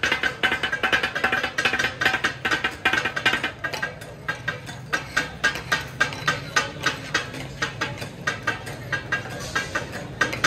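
Katakat being made: two flat steel blades striking and scraping a hot iron griddle in a rhythmic metallic clatter, several sharp ringing strikes a second. The strikes are densest in the first few seconds, then come more evenly spaced.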